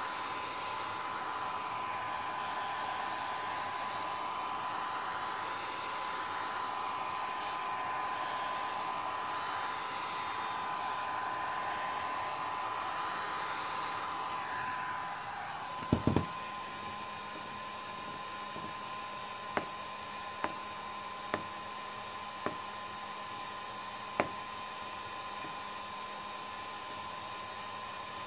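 Electric heat gun blowing hot air steadily into a plastic shell; about fifteen seconds in its blowing drops away and there is a loud double knock as it is put down. Then come five sharp, separate clicks as the warm plastic shell is pressed into shape, cracking as it cools.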